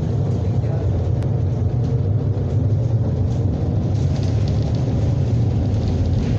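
Steady low rumble heard inside a Miami Metromover car as the rubber-tyred people mover runs along its elevated concrete guideway. Light rattling joins in during the last couple of seconds.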